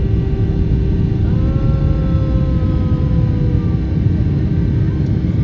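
Steady loud roar of a jet airliner's engines and cabin noise, heard from a window seat just behind the wing engine during the climb after takeoff. A fainter drawn-out higher tone sounds over it for a couple of seconds, starting about a second in.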